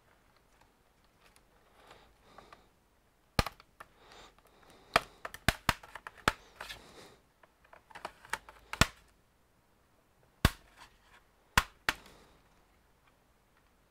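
Clips of a Lenovo ThinkPad T15 laptop's bottom cover snapping loose as the cover is pried off: a string of sharp, irregularly spaced clicks, with handling rustle between them.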